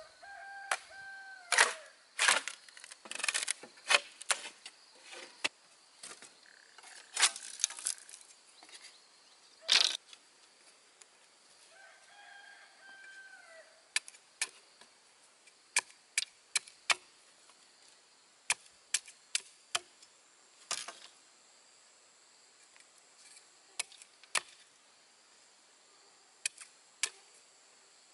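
Machete blows on bamboo: sharp, irregular knocks and cracks as poles are chopped and strips cut into stakes, frequent and loud in the first ten seconds, then sparser, lighter strokes. A rooster crows twice, once near the start and again about 12 seconds in.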